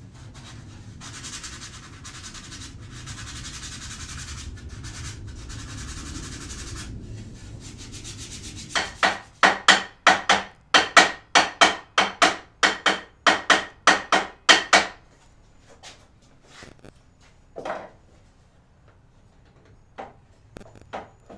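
Hand sanding of a small wooden frame: a steady rubbing for the first several seconds, then quick back-and-forth strokes about three a second, followed by a few light wooden knocks.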